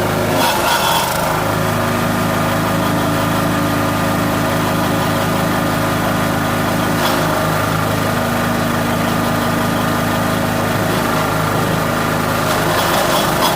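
Wood chipper's engine running steadily, with brief bursts of noise near the start, about seven seconds in and near the end.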